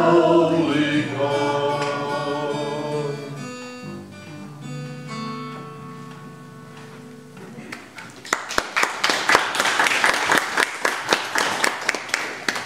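Small group of voices singing the end of a song with two acoustic guitars. The voices stop and the last guitar chord rings out and fades. About two-thirds of the way in, a congregation starts clapping.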